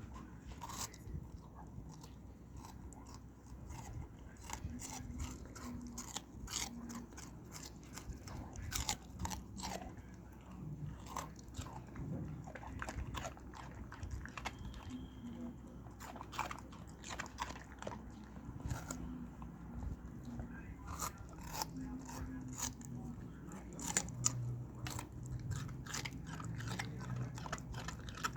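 A dog chewing, with many sharp crunches and clicks coming irregularly throughout.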